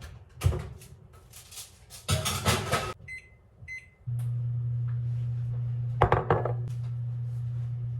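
Clatter of dishes, then two short keypad beeps and a microwave oven starting up with a steady low hum. A couple of knocks sound over the hum about six seconds in.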